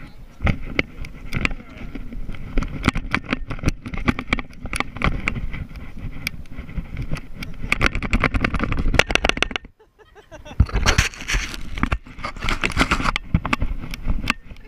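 Water splashing and sloshing close against a GoPro, heard as dense rapid crackling over a rough rushing noise, with a brief dropout to near silence about ten seconds in.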